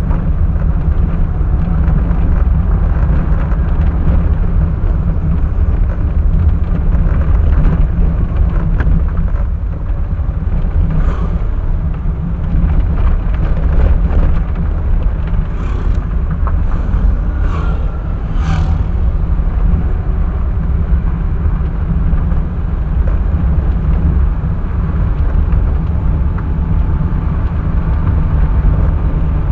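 Vehicle in motion: a steady, loud, low engine and road rumble, with a handful of short knocks between about 11 and 19 seconds in.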